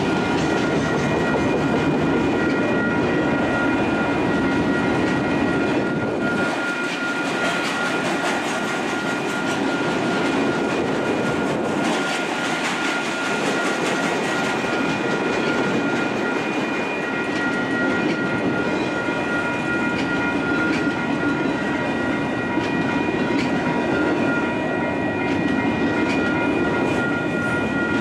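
Freight train of autorack cars rolling past at steady speed: a continuous rumble of wheels on the rails. Steady high ringing tones sit over it from the level-crossing bell.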